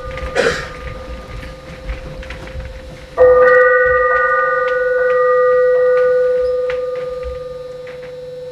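A steady, held tone sounds throughout. About three seconds in, a bell-like note is struck loudly over it, its several ringing tones sustaining and slowly fading. Before the strike come a couple of soft swishes and small clicks.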